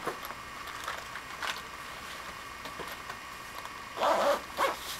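Faint crinkles and taps of a clear plastic toiletry bag being handled and packed into a suitcase, over a steady room hum, with a brief louder sound about four seconds in.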